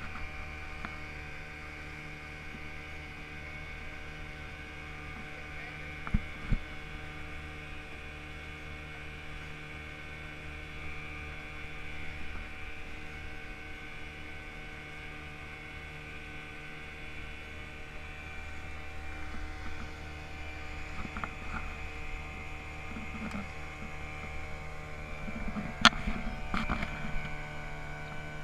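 Steady low mechanical hum of a running motor, holding several fixed tones without change, with a short knock about six seconds in and a sharp click and a few knocks near the end.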